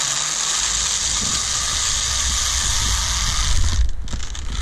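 Zipline trolley pulleys running fast along a steel cable, a steady high hiss with a faint whine, over wind rumbling on the microphone. The hiss drops away suddenly near the end.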